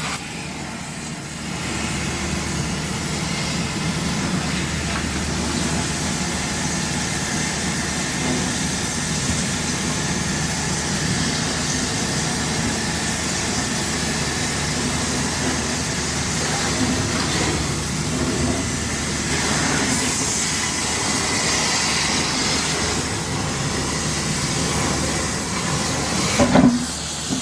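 Cutting torch running with a steady hiss and low rumble as it cuts metal, with one brief louder sound about a second before the end.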